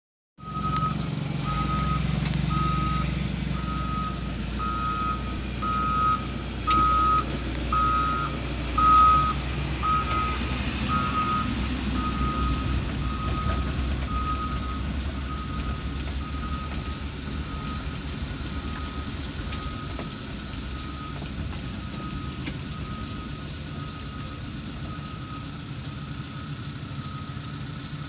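Reversing alarm of a heavy vehicle beeping about once a second. It is loudest around nine seconds in and grows fainter after that, over the low rumble of truck engines running.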